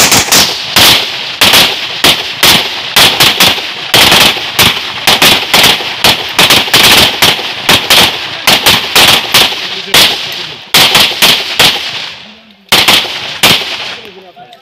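Several semi-automatic pistols firing together in a ragged string of sharp shots, several a second and overlapping. The firing pauses briefly near the end, a few last shots follow, then it stops.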